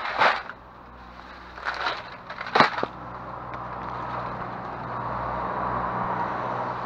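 A truck approaching, its engine and road noise swelling steadily louder over the last few seconds. Before that come a few brief crinkles and one sharp crack of plastic bags being handled.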